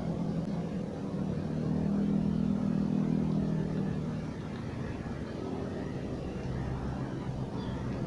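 A vehicle engine runs with a steady low drone. It swells from about a second and a half in, eases off after about four seconds, and a lower hum comes in near the end.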